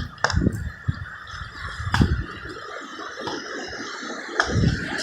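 Footsteps and handling noise on a hand-held phone while picking down rocky ground: irregular low thumps, with a few sharp clicks of feet on stones.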